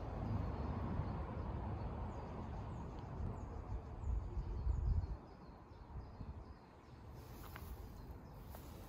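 Wind buffeting the microphone, heaviest in the first half and easing after about five seconds, with faint bird chirps in the background.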